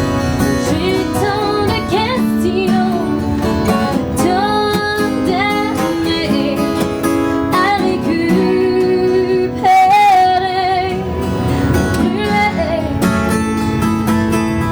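Background music: a song with a woman singing over strummed acoustic guitar, in a country or folk style.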